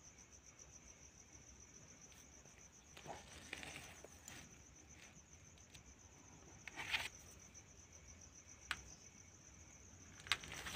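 Crickets trilling steadily in one high, even, finely pulsing band, faint throughout. A few short taps and rustles of handling cut in, a few seconds in, around the middle and near the end.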